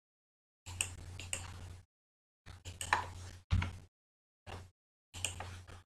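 Computer mouse clicking during text selection and formatting, in short bursts that cut in and out, with a low electrical hum under each burst.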